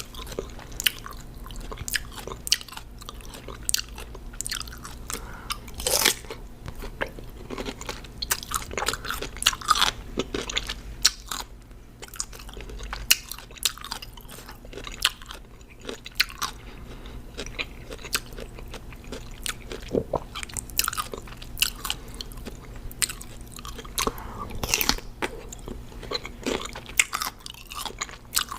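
Close-miked crunching and chewing of raw cucumber: many sharp, irregular crackles as the crisp flesh is bitten and chewed.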